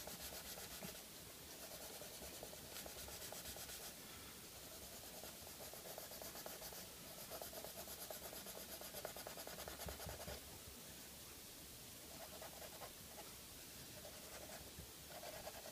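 Orange Crayola colored pencil shading on paper, held flat and pressed down hard: a faint, continuous scratchy rubbing of the pencil strokes.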